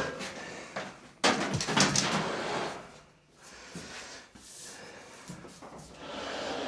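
A front-loading clothes dryer being dragged across the floor: a sudden scrape about a second in, lasting a second and a half, then fainter shuffling and knocks as it is shifted further out from the wall.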